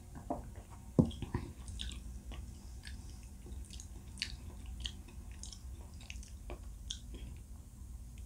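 A glass of cola with ice lifted, drunk from and put down, close to the microphone. There is one sharp knock about a second in, then a string of small clicks and swallowing sounds.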